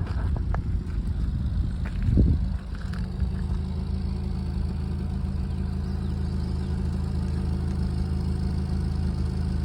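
2015 Nissan Rogue's engine idling with a steady low hum, a rough idle by the owner's account. The first couple of seconds are less settled, with a brief louder surge about two seconds in before the idle steadies.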